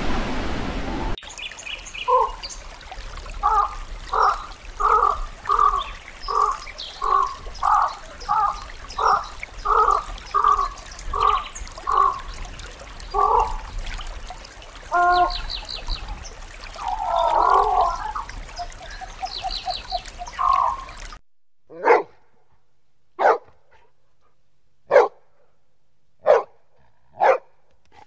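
A long run of short, evenly repeated animal calls, about two a second, whose source is not shown. About two-thirds of the way in they give way to five single dog barks, spaced a second or so apart.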